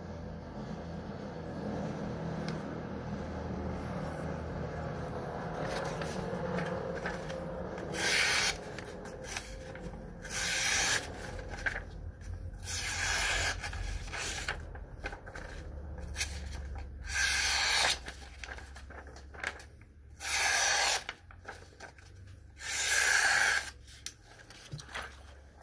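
Carbon-steel knife blade slicing through a hanging sheet of paper, about six short cuts a couple of seconds apart. This is a sharpness test of the edge.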